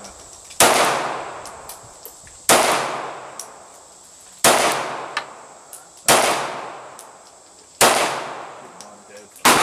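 Glock 43 9mm pistol fired six times at a steady pace, about one shot every second and three-quarters, each shot echoing away before the next.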